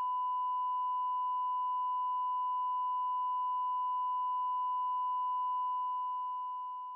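A steady, pure electronic sine tone at about 1 kHz, like a test tone, fading out near the end.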